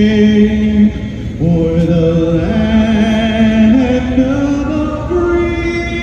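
A solo singer performing the national anthem, holding long notes that step upward in pitch, some with vibrato.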